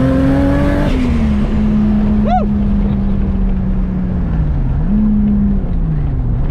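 Car engine running at fairly steady revs, a constant drone over road rumble. The revs ease off about a second in, then dip and pick up again twice near the end. A short chirp sounds about two seconds in.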